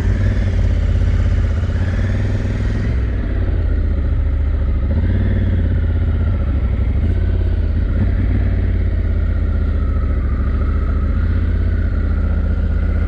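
Honda Africa Twin's parallel-twin engine running as the motorcycle is ridden along a narrow road, a steady loud sound with a deep low rumble and a wavering higher whine that shifts in pitch.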